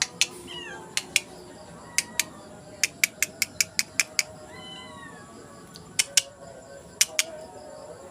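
Cat giving two faint, high mews, each falling in pitch, one about half a second in and one near the middle. A scattering of sharp clicks or taps runs alongside.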